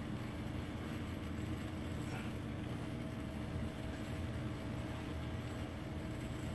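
Steady low rumble of an O-gauge three-rail toy train layout running, with a faint steady whine joining about three seconds in.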